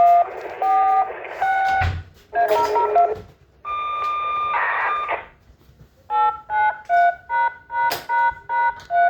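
Touch-tone DTMF signalling tones sent as a siren activation code: several bursts of paired beeps over a hiss, a longer held tone, then a quick run of about nine short two-note beeps, roughly three a second.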